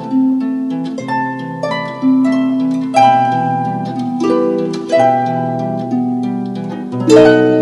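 Plucked-string instrumental music: slow chords and single notes that each ring out and fade, with a new one struck about every second and the strongest chord near the end.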